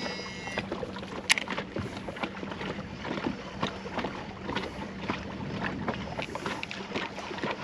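Small waves lapping and slapping against a boat hull, with wind on the microphone and a faint steady low hum underneath; a sharp click sounds just over a second in.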